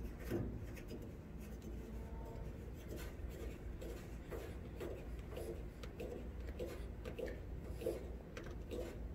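Faint scratchy rubbing in a series of short scrapes as a Teflon-taped plastic overflow drain stem is twisted by hand, turn by turn, into the drain fitting of an evaporative swamp cooler's base pan.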